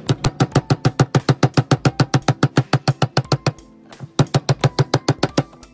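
Background music with a fast, steady drum beat of about eight strokes a second and held notes behind it. The beat breaks off briefly a little past halfway, then comes back.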